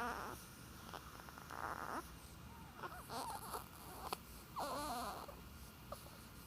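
Baby fussing while being held: a string of short squeaky, wavering cries and breathy grunts, about one every second.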